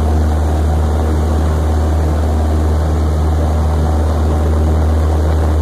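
Small single-engine propeller plane's piston engine and propeller running steadily at high power during the takeoff roll, heard from inside the cockpit as a loud, even drone with a strong low hum.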